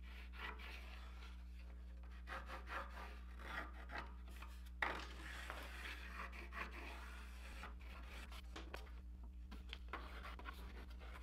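Faint pencil scratching and rubbing as a wooden template is traced around onto a laminated wooden kayak paddle blade, with a small sharp knock about five seconds in. A steady low hum runs underneath.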